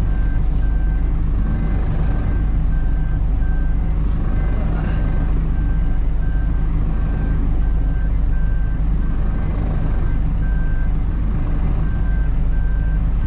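Reversing alarm of a Hino cab-over box truck beeping in an even run of short, high beeps, a little wimpy beep, over the steady low running of the truck's diesel engine as it backs up.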